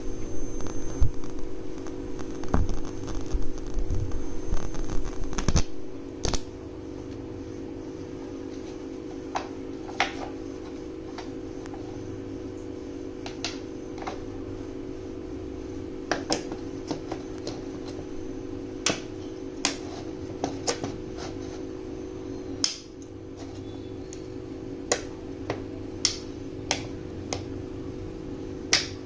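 High-voltage electric arc buzzing and crackling loudly between two screw electrodes, with a thin high whine, then cutting off suddenly about six seconds in. After that a steady low hum remains, broken by scattered sharp clicks and taps from a hand working at the electrode holder.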